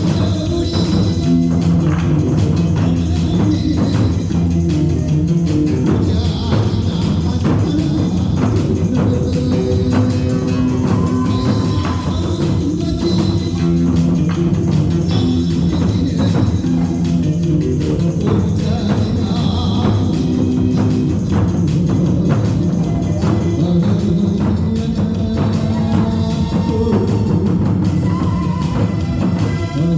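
Korean buk barrel drums beaten in a fast, steady ensemble rhythm over accompanying music with a held melody and chords.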